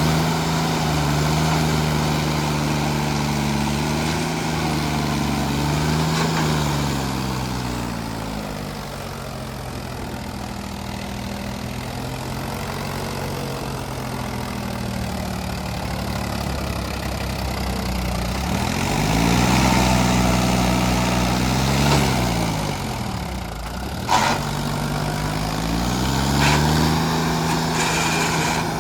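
Tractor engine running near idle, its speed sagging and picking up again several times, with a brief rise and fall in revs about two-thirds of the way in. A single sharp knock comes shortly after.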